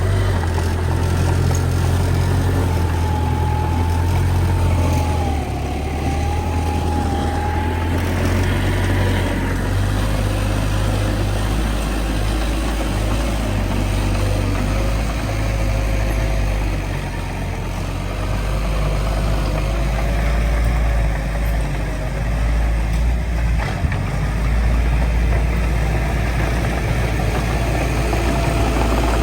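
Heavy diesel engine of earthmoving machinery running with a strong low drone, a wavering whine riding over it, and a brief dip in loudness about two-thirds of the way through.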